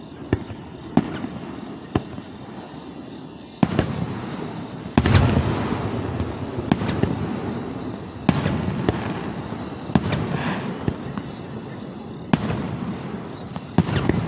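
Fireworks display: a string of sharp bangs about one every second or two. Heavier booms come about four and five seconds in, followed by a dense rumble and crackle that carries on between the later bangs.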